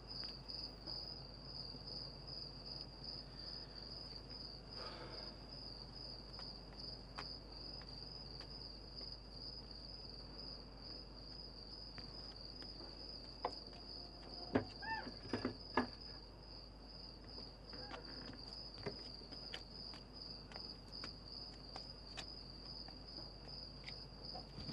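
Crickets chirping steadily in a constant, fine pulsing trill, fairly faint. Scattered soft clicks and knocks run through it, with a short cluster of louder knocks and a brief squeak about fifteen seconds in.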